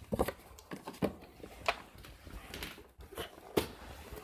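Cardboard product boxes handled and set down on a wooden tabletop: a scattering of light knocks, taps and scrapes, several short ones spread irregularly.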